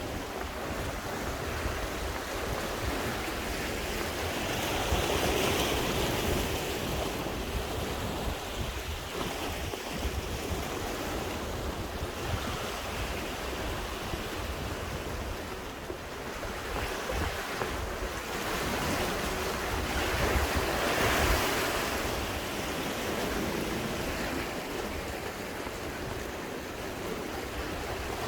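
Sea waves washing against the shore, surging louder twice, with wind buffeting the microphone.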